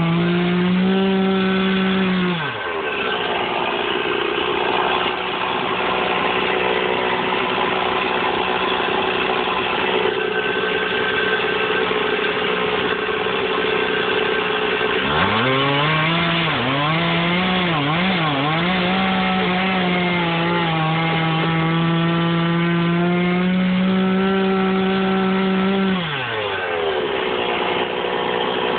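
Stihl two-stroke chainsaw running at full throttle cutting firewood lengths, dropping to idle after about two seconds. About halfway it is revved up again with a few quick throttle blips, held at full speed through a cut for about ten seconds, then let back down to idle near the end.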